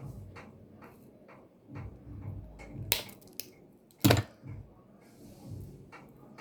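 Hands working a network cable and small tools: scattered light clicks and handling noise, with two sharp snaps about a second apart near the middle.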